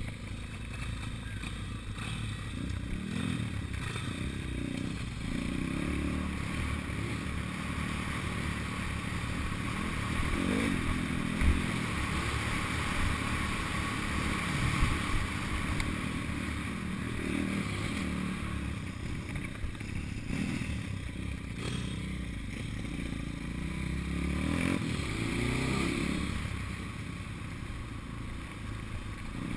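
Pit bike engine rising and falling in pitch again and again as the rider opens and closes the throttle on a dirt trail. Two sharp knocks, one about eleven seconds in and one about fifteen seconds in.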